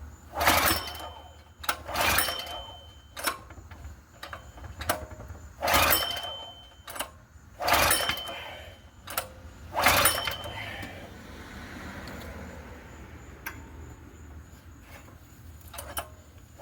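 Predator 212 single-cylinder engine being pull-started on choke: five pulls of the recoil starter in the first ten seconds, each a short rush of noise ending in a brief whine. The engine cranks but does not catch, a no-start.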